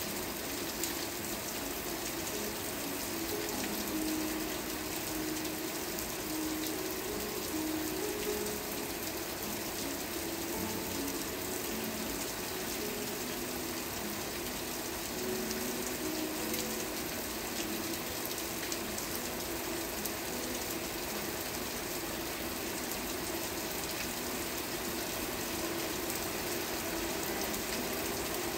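Steady rain falling, an even hiss of drops, with soft low tones that come and go beneath it.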